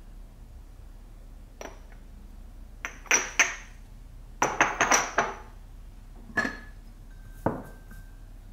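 Small glazed stoneware jars and their lids clinking and knocking against each other and the counter as they are picked up and set down. There is one click about one and a half seconds in, a cluster of sharp clinks around three seconds, and a denser run around four and a half to five seconds. Two single knocks follow later, the last with a brief ringing tone.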